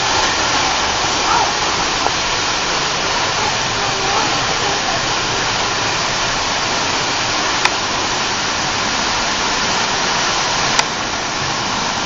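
A waterfall over 100 feet high pouring close beside the trail behind it: a loud, steady rush of water. Two brief sharp clicks sound, one about halfway through and one near the end.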